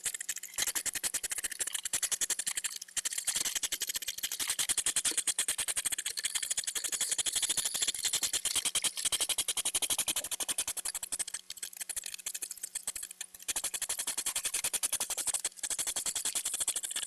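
European hedgehog courtship snorting: a rapid, continuous run of hissing puffs, the mating-season call made mostly by the female. It breaks off briefly a few times in the second half.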